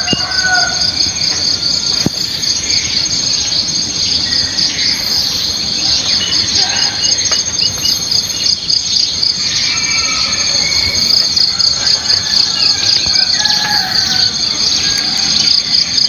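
A steady insect chorus trilling in a rapid pulsing rhythm, with short bird chirps and calls scattered over it.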